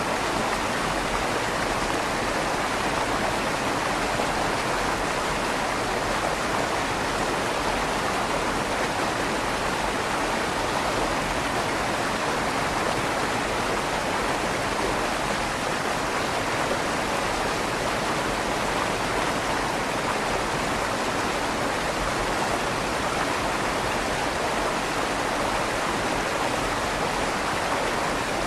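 River water flowing under a stone bridge, a steady even rush with a slight echo off the tunnel's stone walls.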